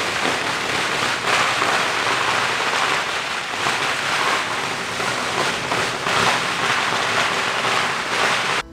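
A long string of firecrackers going off inside a clay firecracker oven: a loud, dense, unbroken crackle that starts and stops abruptly.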